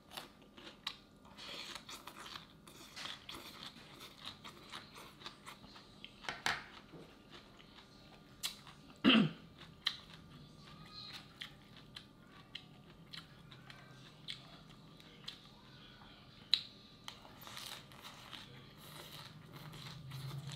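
A person chewing and crunching raw salad of shredded green papaya and lettuce, with many short crisp crunches throughout and one loud sharp sound about nine seconds in.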